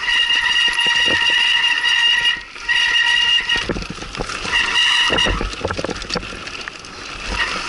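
Mountain bike brakes squealing in a high, steady whine while being dragged on a descent. The squeal breaks off and returns several times as the brakes are let off and applied again. Underneath it are the rattles and knocks of the bike over rough ground.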